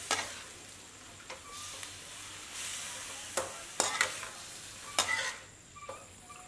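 Sliced beef sizzling in a stainless-steel wok while a metal spatula stirs it, with several sharp clinks and scrapes of the spatula against the pan. The sizzle fades lower near the end.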